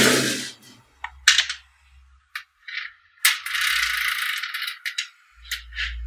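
Small magnetic balls clicking as they snap together, then rattling for a spell in the middle as they are rolled into a row. A brief burst of rushing noise comes right at the start.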